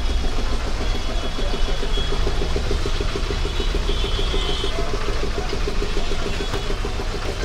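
An engine idling: a steady low rumble with a fast, even pulse.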